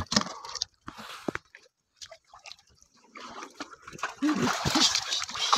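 Wet splashes as a carp is dropped into a plastic bucket, then a pause of a second or two before water sloshing and splashing resume.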